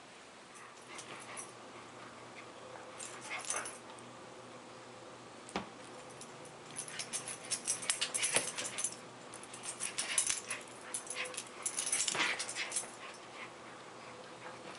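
Toy poodle playing tug-of-war with a toy: irregular bursts of scuffling and dog play noises, in clusters a second or two apart, busiest in the middle.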